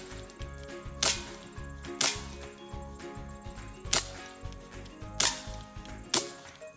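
Sig Sauer 1911 CO2 BB pistol (4.5 mm, 12-gram CO2 cartridge) firing five sharp shots, spaced irregularly about one to two seconds apart.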